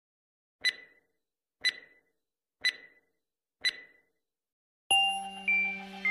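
Countdown intro sound effect: four short electronic beeps one second apart, then, about five seconds in, a loud sustained electronic tone with a few higher notes added as the count reaches zero.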